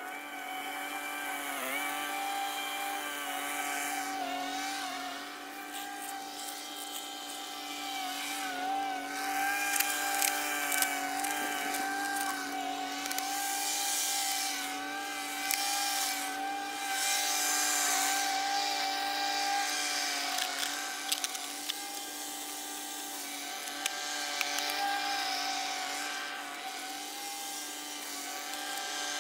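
An engine running steadily, its pitch wavering slightly now and then, with scattered clicks and scrapes of corrugated plastic drain pipe and fittings being handled.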